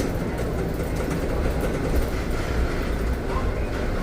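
Steady low rumble of a city bus in motion, heard from inside the bus: engine and road noise.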